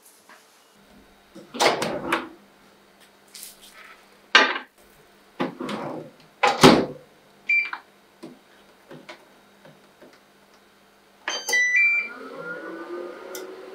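A few rustles and clunks of handling, then short electronic keypad beeps from a microwave oven. After the beeps the microwave starts running with a steady hum, heating the covered dish.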